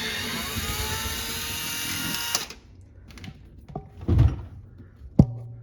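Cordless drill-driver spinning up and running for about two and a half seconds, backing out a dishwasher's side mounting screw, then stopping. A few knocks follow, and a sharp click near the end.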